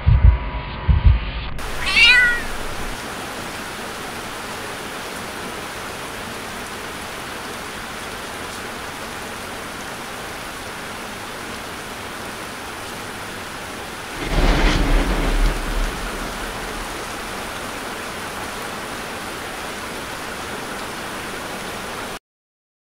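A few low thumps, then steady rain begins; about two seconds in a cat gives one short meow. About fourteen seconds in a crack and rumble of thunder swells for a couple of seconds over the rain, and all sound cuts off suddenly near the end.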